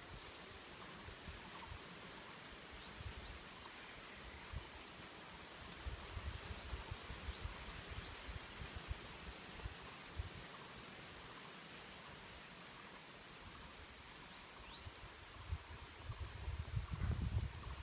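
Steady, high-pitched drone of forest insects, pulsing slightly, with a few faint short chirps. Low thuds and rumbles come and go, heaviest near the end.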